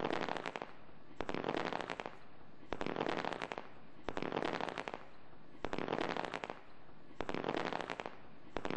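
Fireworks firing in repeated volleys, each a cluster of sharp pops and crackling, coming about every one and a half seconds.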